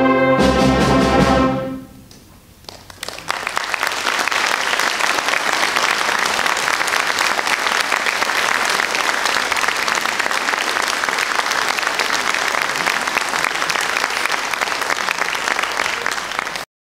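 A concert wind band's final brass-heavy chord, which cuts off about two seconds in and rings briefly in the hall; about a second later the audience breaks into steady applause, which cuts off abruptly near the end.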